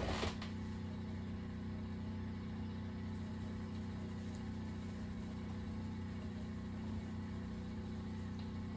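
A steady low mechanical hum, unchanging throughout, with a brief faint rustle at the very start.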